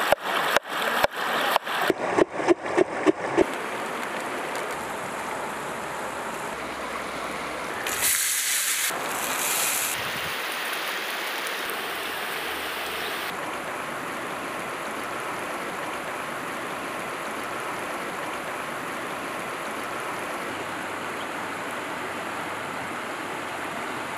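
Knife chopping a potato on a wooden cutting board, about a dozen quick strokes, three or four a second. Then shredded potato sizzling steadily as it fries in oil in a pan, louder for a moment about eight seconds in.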